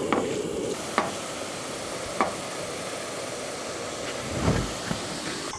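Food sizzling in a pan, a steady hiss, with a few sharp clicks of a utensil against the pan.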